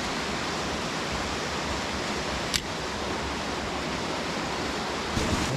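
Steady rush of a small waterfall and stream splashing into a rocky pool, with a single sharp click about two and a half seconds in.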